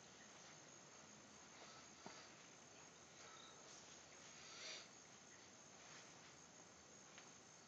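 Near silence: faint steady background hiss, with a small click about two seconds in and a brief soft swell near five seconds.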